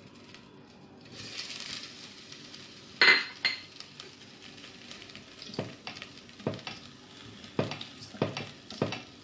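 Sliced onion sizzling in oil in a stainless-steel pot, with a loud metal clank about three seconds in, then a metal spoon knocking against the side of the pot again and again as the onion is stirred.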